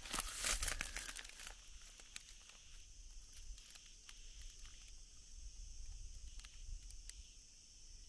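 Footsteps crunching on dry leaf litter and mulch, dense in the first second and a half, then scattered crackles, over a steady high insect drone.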